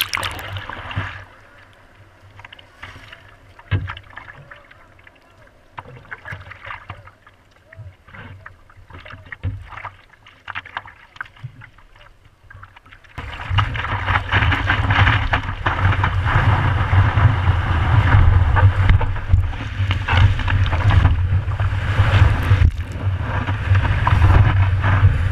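Water lapping and splashing against a surfboard-mounted camera for the first half, then, about halfway through, a sudden loud, steady rush of water and wind as the longboard catches a wave and rides it.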